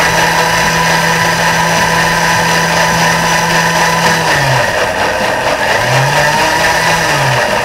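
Thermomix-type blender running, puréeing a thick chestnut cream. It gives a steady hum whose low pitch drops about four seconds in, rises again, then drops once more near the end.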